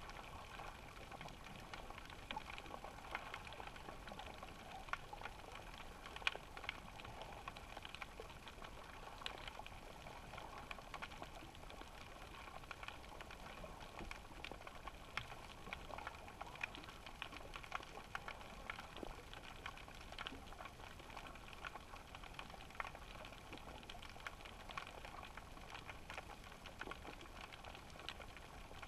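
Faint underwater ambience picked up through a GoPro's waterproof housing: a steady hiss with a few faint steady tones, dotted all through with scattered small clicks and crackles.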